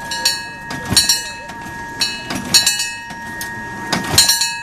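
Antique hand-pumped fire engine (hand tub) being worked by its crews on the pumping brakes: a burst of metallic clanking and ringing with a thud comes with each stroke, about every one and a half seconds.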